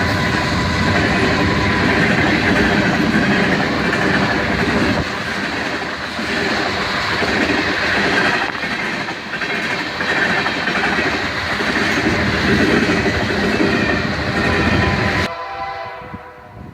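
A train passing close by, its wheels clattering over the rails with a loud, steady rumble. The sound cuts off abruptly near the end.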